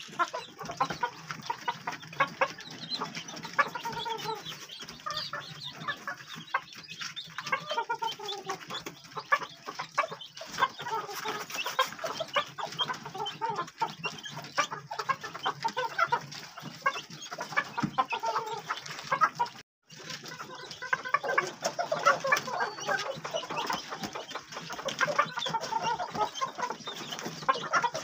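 White Polish chickens clucking continuously, many short calls overlapping one another. The sound cuts out for a split second about two-thirds of the way through.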